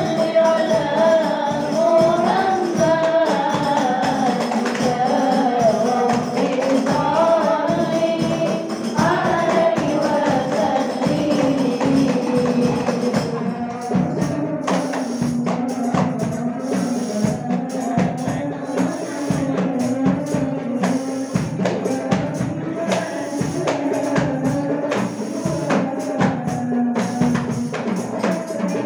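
Hadroh ensemble: hand-played rebana frame drums beating a busy, steady rhythm under a sung Islamic sholawat carried over a loudspeaker. About halfway through the high melody drops away to a lower voice and the drum strokes stand out more.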